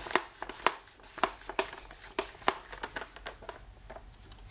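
Irregular sharp clicks and knocks, about two a second and loudest in the first second, from a homemade pump-action Nerf blaster being readied for its next shot, with the Firefly turret turned to the next barrel and the pump worked.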